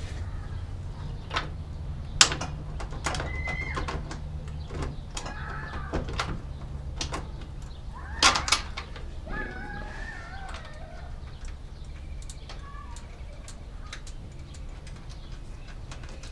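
Metal clicks and knocks as a disc-brake booster is handled and fitted against a truck's sheet-metal firewall, with a sharp knock about two seconds in and a double knock about eight seconds in, over a steady low hum.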